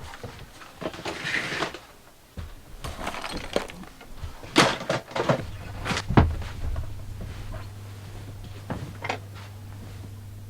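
Knocks, clicks and rustling of belongings being picked up and put away while tidying a bedroom. A low steady hum comes in about halfway through.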